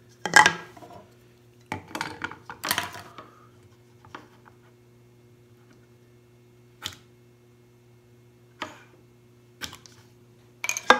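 Irregular knocks and clicks of hand tools and wooden parts being handled on a workbench, the loudest just after the start and a cluster a couple of seconds in, then single clicks every second or two, over a faint steady hum.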